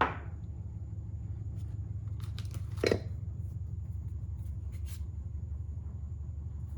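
Small metal tools being handled and set down: scattered light clicks and clinks, with one louder knock about three seconds in, over a steady low hum.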